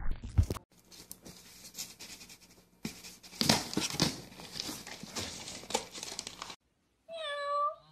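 Paper banknote and cardboard crinkling and scraping as a cat's paw pulls the note through a slit into a box, with sharp scratchy rustles that come and go. Near the end comes one short high-pitched cry.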